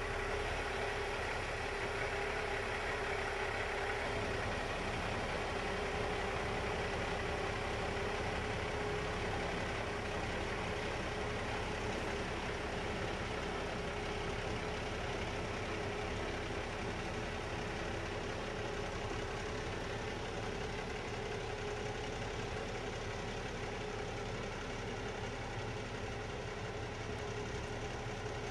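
Semi-truck's diesel engine running steadily at idle while the tractor-trailer creeps forward at a crawl.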